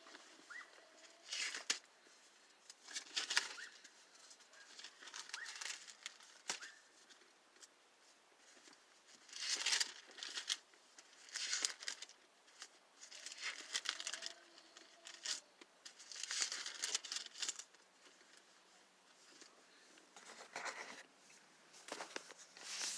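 Thin Bible pages being leafed through, a string of short papery rustles and swishes every second or two.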